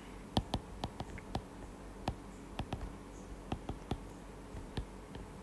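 Stylus tip tapping and ticking on an iPad's glass screen during handwriting: a string of small, irregular clicks over a faint low hum.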